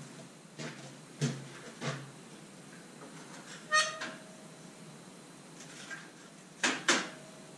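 A radiator being handled and shifted in a truck's front end gives off about six scattered light knocks and clinks. Two of them, around four seconds in and near the end, ring briefly with a metallic tone.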